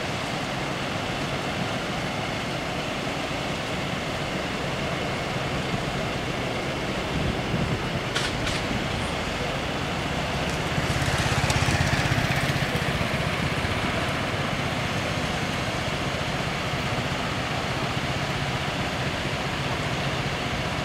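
Cars and motor scooters idling in street traffic, with a steady low engine hum. About halfway through, one engine grows louder for a couple of seconds, then settles back.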